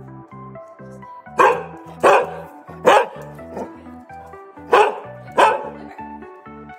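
A Boykin spaniel barking five times, short loud barks in two groups, over background music.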